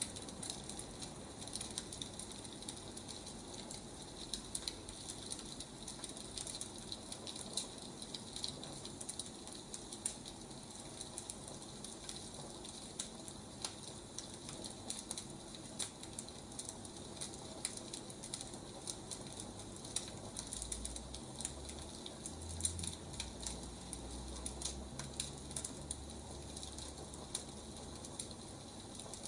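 Wood fire crackling steadily, with many small irregular pops and snaps over a soft hiss.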